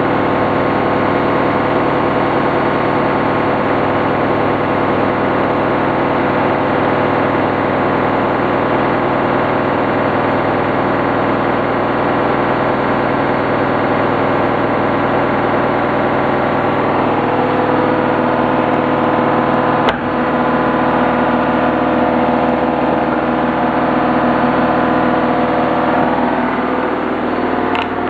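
Bush Big Load front-loading washing machine in its fast final spin of a synthetics 40 programme: a steady motor whine and drum hum. About two-thirds of the way through the tone changes as new pitches come in, and the level dips briefly near the end.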